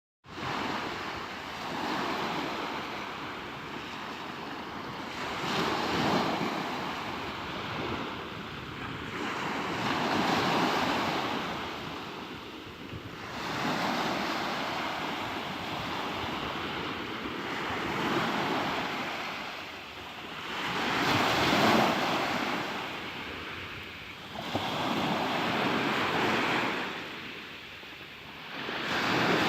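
Black Sea surf breaking and washing in, each surge swelling and ebbing about every four seconds.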